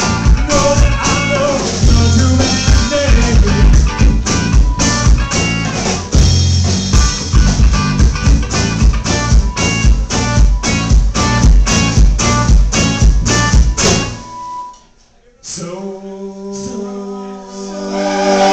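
Live rock band playing with drums and guitar on a steady driving beat, stopping abruptly about fourteen seconds in. After a brief near-silent break, sustained chords ring out and swell.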